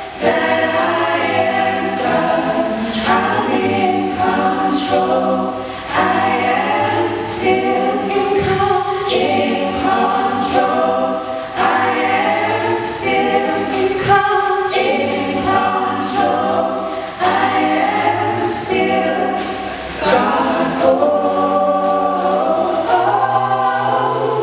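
Small mixed-voice gospel choir singing a slow worship song into handheld microphones, in phrases of a few seconds with brief breaks between them.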